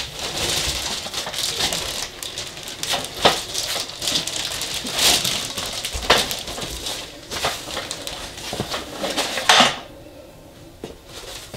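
Plastic packaging bag crinkling and rustling as it is pulled off a boxed telescope pier, with foam padding being handled and several sharp knocks. It quiets about ten seconds in.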